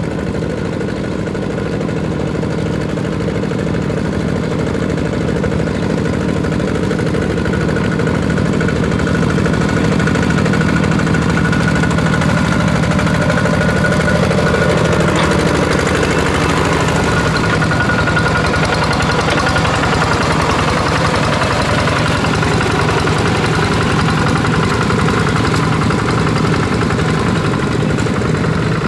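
Two-wheel walking tractor's single-cylinder diesel engine running steadily with an even, rapid firing beat as the tiller works through a muddy paddy field, growing a little louder over the first ten seconds or so.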